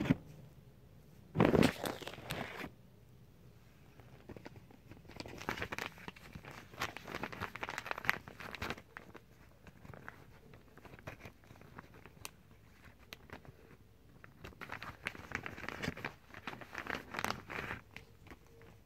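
Clear plastic packaging crinkling and rustling as it is handled and opened, in uneven bursts, with one louder rustle lasting about a second near the start.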